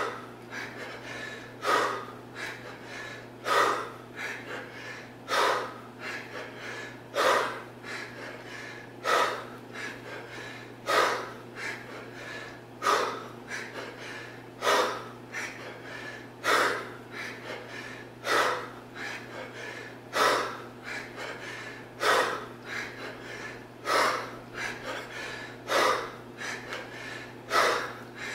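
A man breathing hard through kettlebell swings with a 40 kg kettlebell: a sharp, forceful exhale with each swing, about every two seconds, with quicker, softer breaths in between.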